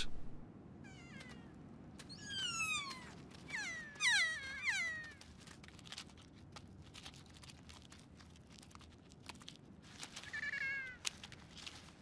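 Kea calling: high, downward-sliding cries, several in the first five seconds and one more near the end, with faint clicking in between.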